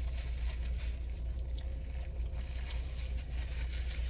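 Steady low rumble of a running car heard from inside the cabin, with a faint steady tone above it and a few faint soft ticks.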